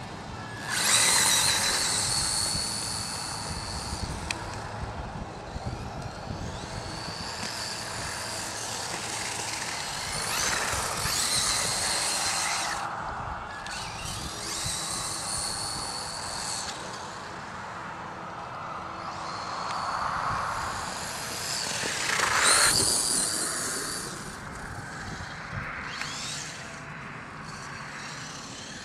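HPI E-Firestorm RC truck's 5700kv brushless motor and spur gears whining on full-throttle runs. The high-pitched whine comes in repeated surges as the truck accelerates and passes, loudest near the start and again about two-thirds through.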